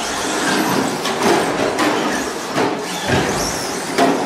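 Radio-controlled 1:10 short course trucks racing on a track: a steady noisy drone of motors and tyres, broken by about five sharp knocks.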